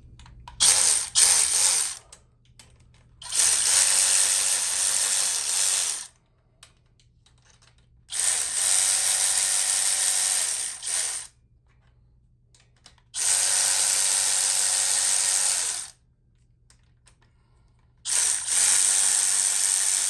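Cordless power tool running in five bursts of one to three seconds each, spinning bolts loose on a motorcycle engine.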